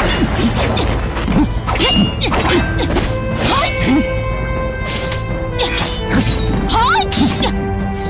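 Staged film fight sound effects: a rapid series of hits and katana swishes over dramatic background music.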